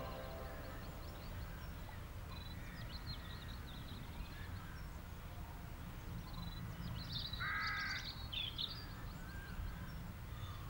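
Faint ambient background of birds calling and chirping, with a harsher call about seven and a half seconds in, over a low steady hum.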